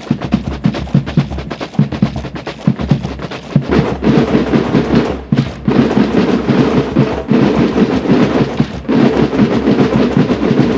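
Massed military band drums beaten together in a steady marching rhythm, the strokes coming thick and fast and growing fuller and louder about four seconds in.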